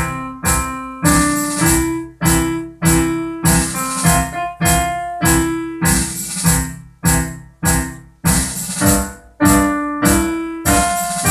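Piano or electric-piano music: chords struck in a steady rhythm, a little under two a second, each one ringing and fading before the next.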